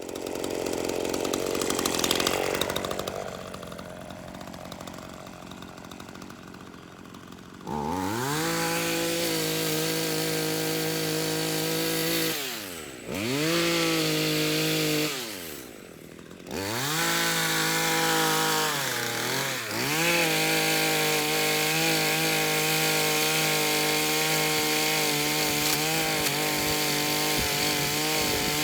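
Chainsaw starting up about eight seconds in after a stretch of noisy sound, running at high speed with its revs dropping away and picking up again twice, then held steady.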